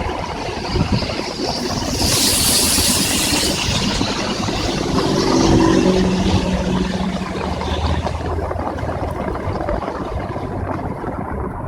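Heavy rain with traffic passing on a wet highway: a burst of tyre-spray hiss about two seconds in, then a vehicle's engine passing, loudest around the middle.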